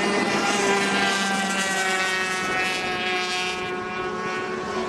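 Racing powerboats' 350cc two-stroke outboard engines running flat out at high revs, a steady high-pitched whine of several overlapping engine tones.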